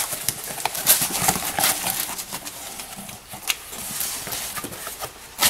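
A cardboard parts box and its packaging being handled and opened: irregular rustling and scraping with light knocks, the sharpest about a second in and again at about three and a half seconds.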